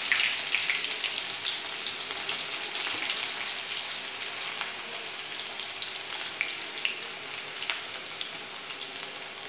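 Chopped onions frying in hot oil with cumin seeds in a metal kadai: a steady sizzle with small crackles, slowly fading as the onions settle in the oil.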